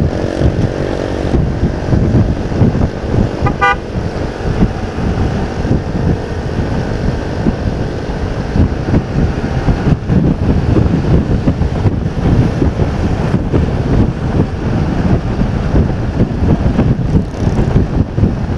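Motorcycle riding in traffic, heard through a helmet-mounted external mic: steady wind buffeting over the engine's running. A vehicle horn toots once, briefly, about three and a half seconds in.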